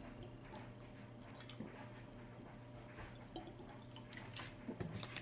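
Quiet room tone with a low steady hum and faint scattered small clicks, a few of them a little louder near the end.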